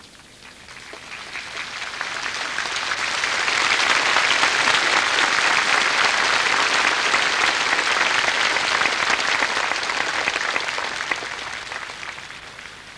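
Large open-air crowd applauding, swelling over the first few seconds, holding, then slowly dying away near the end.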